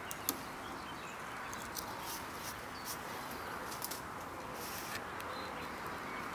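Spawning roach stirring shallow lake water: a steady soft wash with scattered small splashes and ticks.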